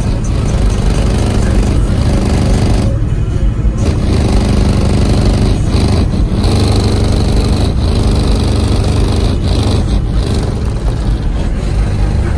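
Bass-heavy music played loud through a truck's 10,000-watt subwoofer system, heard from outside the cab, with strong steady low bass throughout.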